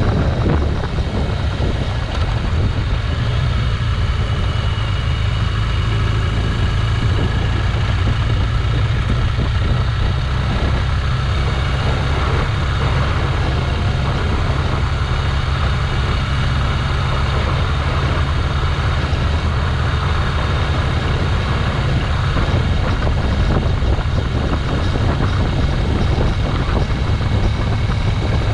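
Motorcycle riding along at a steady pace: a loud, even drone with no revving or gear changes.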